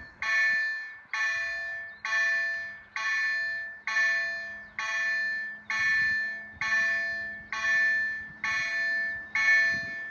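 Railway level-crossing warning bell striking a little more than once a second. Each strike rings out and fades before the next, warning that the crossing is closing for an approaching train.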